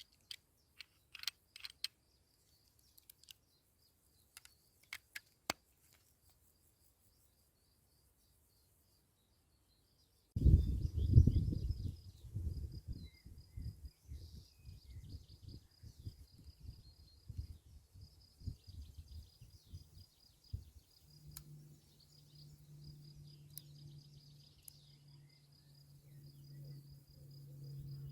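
Outdoor ambience: a steady high insect chirping over a loud, irregular low rumble, with a steady low hum joining about halfway through. A few sharp clicks sound in the first few seconds, before a short silent gap.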